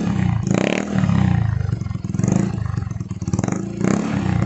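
Yamaha Mio i125 scooter's single-cylinder four-stroke engine, breathing through an aftermarket PS Racing exhaust pipe, revved up and let drop back several times in quick throttle blips.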